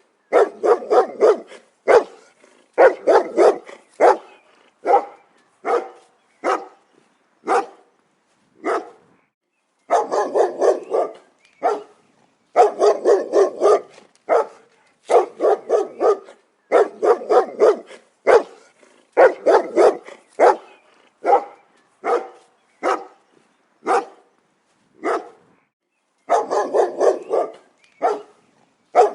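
A dog barking in quick runs of sharp barks, with short pauses between the runs.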